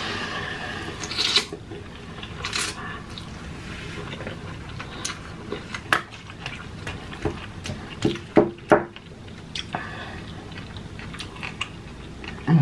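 Close-miked eating: noodles slurped off chopsticks for about the first second and a half, then wet chewing with scattered small clicks and smacks, a few louder ones past the middle.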